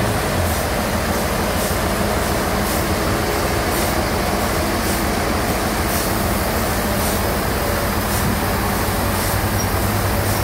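Sawmill bandsaw running with a steady mechanical noise and a faint regular tick under it, a little under twice a second.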